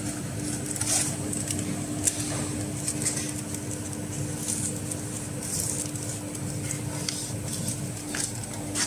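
Plastic packaging film rustling and crinkling now and then as it is pulled and threaded by hand through a packing machine's rollers, over a steady low hum.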